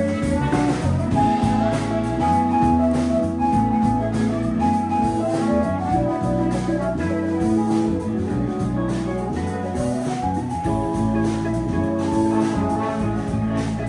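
Instrumental music: a melody of held notes over a steady bass line.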